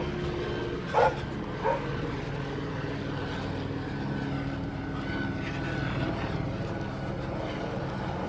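Steady drone of a police helicopter circling overhead. A dog barks twice about a second in.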